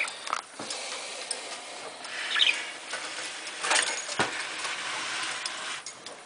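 Budgerigars rustling and scratching about in the cage and nest box, with scattered light knocks and clicks.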